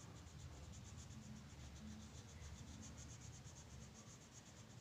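Faint scratching of a red colour scribbled back and forth on a paper textbook page, in quick, regular strokes, as a word box is filled in.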